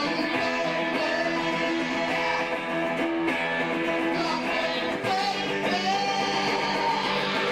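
Live electric guitar strummed through an amplifier in held chords, the chord changing about five seconds in, with a man singing into a microphone.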